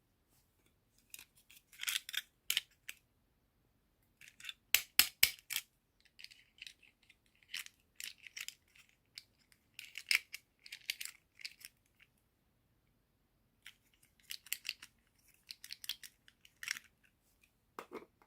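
Toy packaging being handled during an unboxing: irregular bursts of crisp crinkling and rustling, with a quick run of about five sharp clicks around five seconds in.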